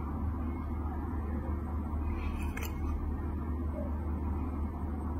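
Steady low background hum, with one brief scrape about halfway through from a metal nail probe working under the edge of an ingrown toenail.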